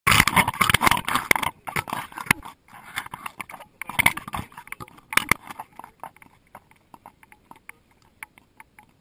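Handling noise from a GoPro Hero2 strapped to a Doberman: loud rubbing and knocking as the dog moves, with two more bursts about four and five seconds in. Then a steady run of soft clicks, about three a second, while the dog stands still.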